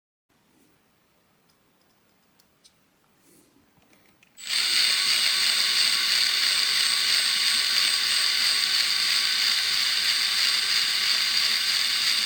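A few faint ticks, then a CNC router machine starts about four and a half seconds in and runs steadily with a high-pitched whine.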